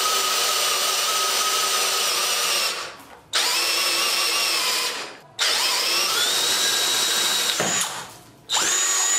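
Tonfon 20V cordless drill boring into wood with a 32 mm spade bit, its motor whine dropping in pitch as it loads up. It cuts out and restarts three times: the sensitive overload protection pausing the tool to keep the motor and battery from overheating.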